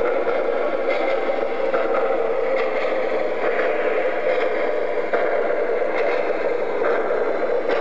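MTH RailKing O-gauge Mallet steam locomotive and its train rolling past on three-rail track: a steady running whir of the motor and wheels, with light clatter over the rails.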